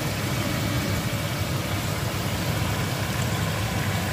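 Marinated chicken pieces sizzling steadily as they fry in oil in a wok, over a low steady rumble.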